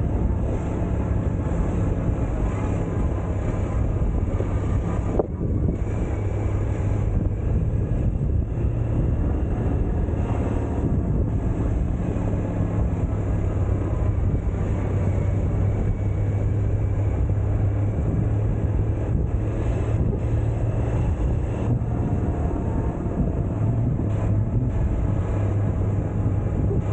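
Suzuki Burgman 650 maxi-scooter's parallel-twin engine running while riding, a steady low hum, with wind buffeting the microphone.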